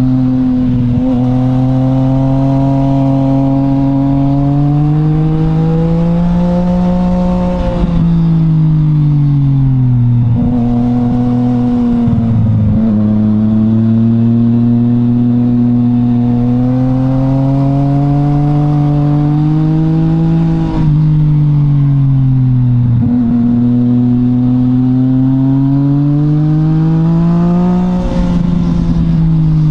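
Yamaha MT-09's three-cylinder engine through an Akrapovic exhaust, heard from on board while riding: the pitch climbs steadily under throttle and falls away as the bike slows, several times over, with brief dips where the throttle is closed or a gear is changed. A steady rush of wind and road noise sits underneath.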